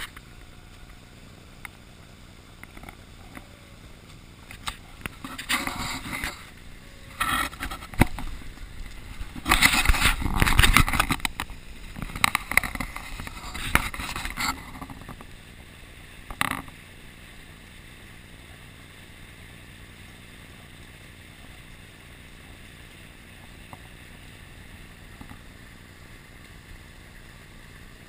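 Steady rush of wind and water aboard a carbon racing catamaran under sail. Through the middle stretch, louder knocks and scrapes sound close to the microphone, then the steady rush carries on.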